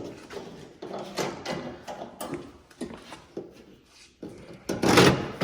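Irregular rustling, scraping and knocking of car parts being handled, with a louder, longer rasping scrape about five seconds in.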